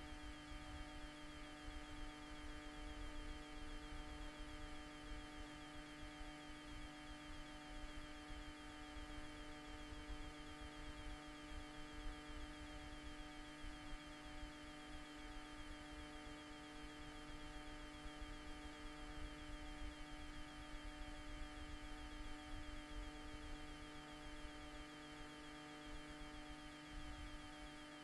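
Steady electrical hum made of several constant tones, with a low, uneven rumble underneath.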